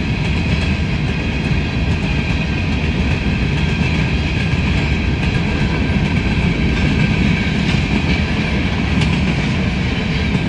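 Freight train cars rolling past at speed: a steady rumble of steel wheels on the rails, with occasional light clicks over the rail joints.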